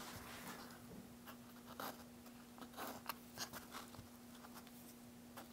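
Faint scratching of a marker pen drawing lines along a straightedge on a guitar top, in short irregular strokes. A faint steady hum runs underneath.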